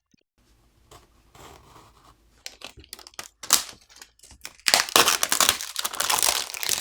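Packaging being handled: faint scattered crinkles and taps at first, then from about two-thirds in a loud, continuous crackling rustle like plastic wrapping or a shipping bag being handled and pulled open.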